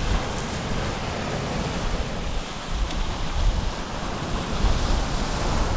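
Sea waves washing on the beach, a steady rushing noise, with wind buffeting the microphone as a low rumble.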